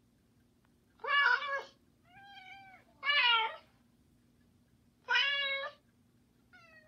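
Cat meows trading back and forth between a tabby cat and the cat sounds an Amazon Echo Dot plays on request. There are five meows: three loud ones about two seconds apart, and two fainter ones between them and near the end.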